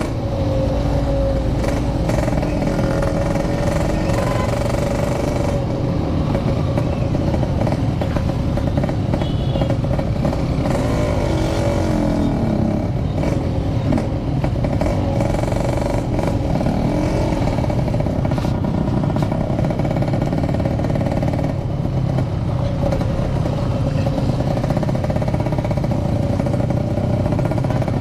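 Yamaha RX King 135cc two-stroke single-cylinder motorcycle engine running under way, its pitch wavering up and down a little with the throttle, over a constant low rumble of wind and road noise.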